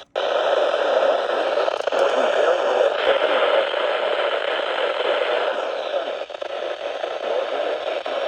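Radio static from a weather radio receiver without a clear signal: a steady, loud hiss with crackle. Its tone shifts about three seconds in and again around five and a half seconds in.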